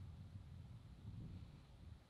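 Near silence, with a faint, uneven low rumble.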